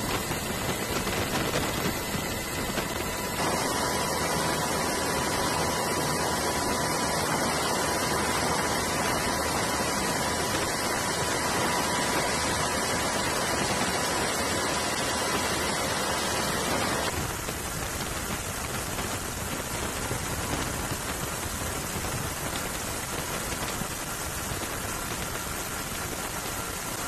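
Steady rushing noise of the aircraft that the aerial footage is shot from, engine and airflow, with a faint steady whine through the middle part. The sound shifts abruptly twice, about three seconds in and again past the middle.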